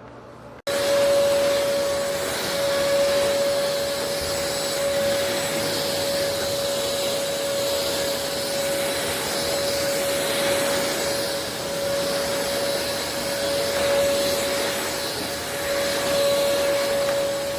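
elezon A200 cordless stick vacuum running steadily: a whine of one steady pitch over a rush of air. It cuts in abruptly about a second in.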